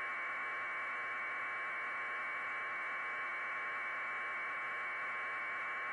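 Steady hiss of static, a flat unchanging band of noise with no events in it.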